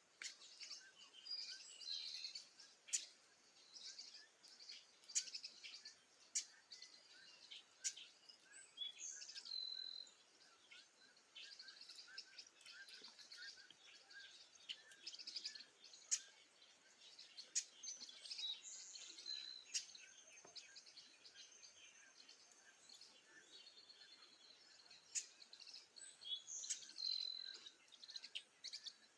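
Dawn chorus of several small birds chirping and singing: a busy mix of short high chirps, with a whistled phrase that drops in pitch coming three times.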